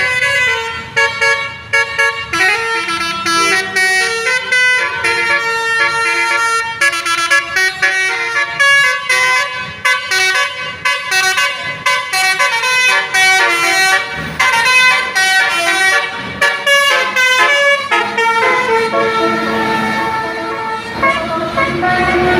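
A bus's Basuri 'telolet' multi-tone musical air horn playing a tune, its notes changing several times a second.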